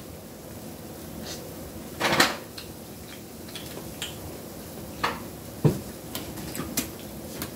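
Irregular cracks and clicks of king crab shell being broken open and picked apart by hand, the loudest crack about two seconds in.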